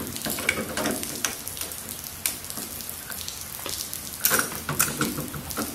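Irregular light clicking and rustling of hands working bolts, washers and rubber mount biscuits into the aircraft engine mount, with a thicker run of clicks about four seconds in.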